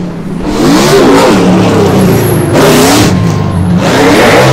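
A racing engine revving hard, its pitch climbing and falling again and again. There is a louder rush of noise about two and a half seconds in and again near the end.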